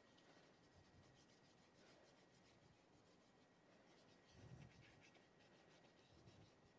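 Faint, repeated scratching of chalk strokes on a blackboard, with a soft low thump about two-thirds of the way through.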